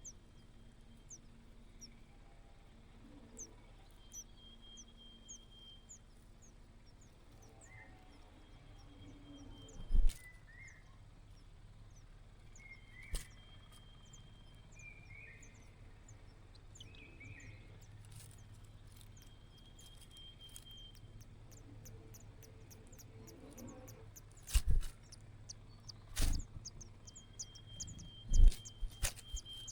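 Small nestling birds giving rapid, thin, high-pitched cheeps over a low steady hum, broken by a few loud thumps, mostly in the last few seconds.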